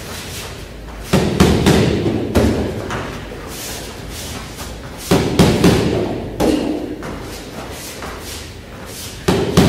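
Punches and front kicks landing on hand-held training pads, in two quick runs of about four hits each (jab, punch, jab, then a front kick), with one more hit near the end.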